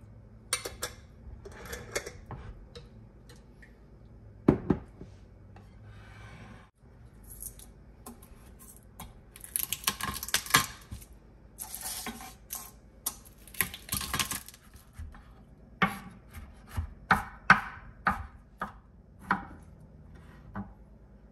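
Food prep with a fork and a chef's knife on a wooden cutting board: a few clinks and knocks of the fork, jar and plate, then rasping scrapes as garlic cloves are crushed and worked under the knife. In the second half a run of sharp strikes follows as the garlic is chopped.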